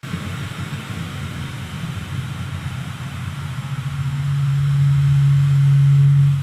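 Roller coaster train running along its track with a rattling low rumble. It builds into a steady, louder low drone over the last two seconds.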